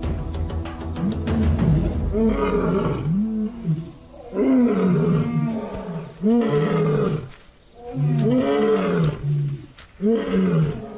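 Male Asiatic lion roaring: a bout of about six deep calls, each rising and falling in pitch, coming one every second or two.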